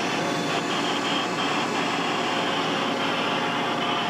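Steady whir of ventilation and cooling fans running in a mobile communications truck's radio equipment bay, with a faint high tone cutting in and out a few times.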